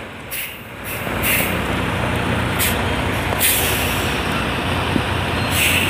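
Tractor-trailer's diesel engine running steadily as the rig crawls along in first gear, with a few short hisses.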